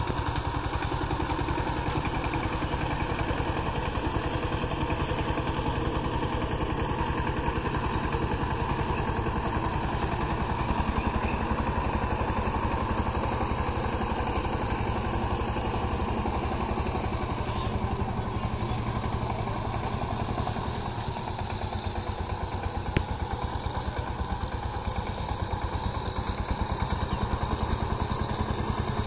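Single-cylinder diesel engine of a two-wheel power tiller running steadily under way with an even chugging beat. One sharp tick sounds about two-thirds of the way through.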